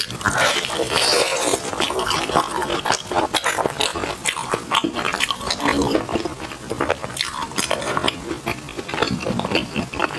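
Close-miked wet chewing and lip-smacking of soft, sticky glutinous rice food, a dense run of small squelches and mouth clicks that keeps going without a pause.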